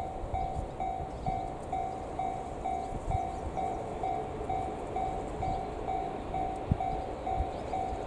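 Japanese railway level-crossing warning bell ringing, an electronic two-pitch ding repeating about twice a second, over the low rumble of an approaching electric train.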